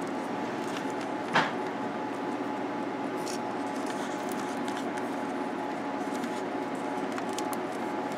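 Electrical tape being handled and wrapped around wire nuts, giving light clicks and one sharper crackle about a second and a half in, over a steady background hum with several held tones.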